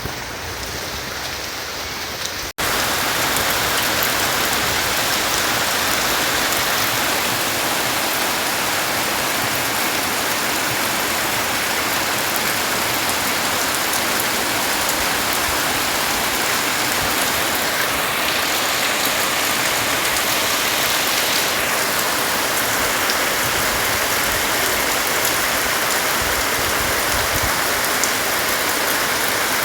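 Heavy rain falling steadily, a dense even hiss with no letup. About two and a half seconds in it cuts abruptly to a louder stretch of the same downpour.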